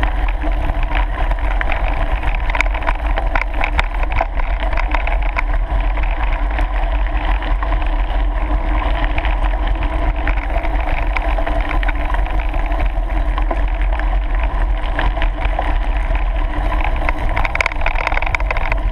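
Bicycle riding over a gravel track: wind rumbling steadily on the microphone, over the crunch and rattle of tyres rolling on gravel.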